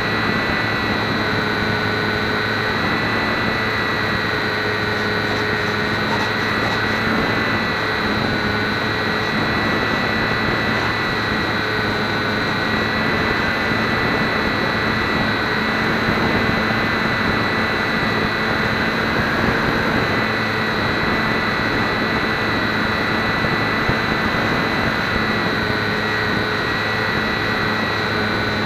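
Electric motor and propeller of a HobbyZone Champ micro RC plane in flight, heard from a keychain camera on the plane: a steady whine in several tones whose pitch shifts slightly now and then, over a rush of airflow noise.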